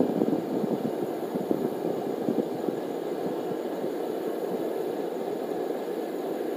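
Forge fire with its air blast running steadily, a dense rushing noise as a steel cable billet heats for forge welding.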